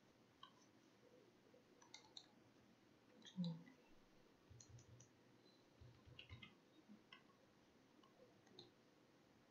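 Near silence with faint, scattered clicks of a computer mouse and keyboard keys, some in quick clusters. A soft thump about three and a half seconds in is the loudest sound.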